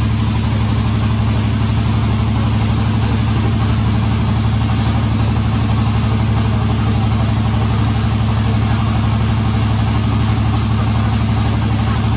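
An engine running steadily at idle: an even low hum that never changes speed, with a high hiss that swells about once a second.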